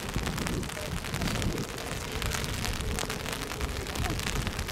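Wind buffeting the microphone: an uneven, gusting rumble with a hiss over it.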